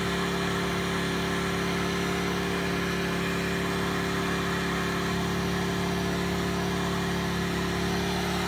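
WEN dual-temperature heat gun running steadily: a constant motor hum under the hiss of its fan blowing hot air, warming reflective tape to soften the adhesive.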